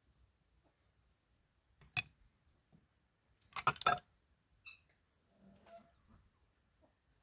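Ceramic clinking as the glazed lid of a painted pottery jug is set down in a terracotta dish: a quick cluster of sharp clinks about three and a half seconds in. Before it, about two seconds in, comes a single light tap as a wooden spoon is laid in a small clay dish.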